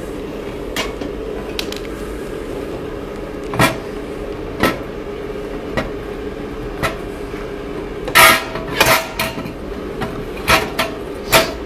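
Scattered knocks and clatter of the sublimation machine's oven drawer and the ceramic plate in its silicone mold being handled, over a steady machine hum. The knocks come thickest about eight seconds in and again near the end.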